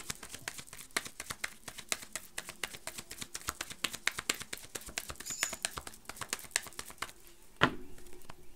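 A deck of tarot cards being shuffled by hand: a rapid stream of light card clicks, with one louder knock near the end.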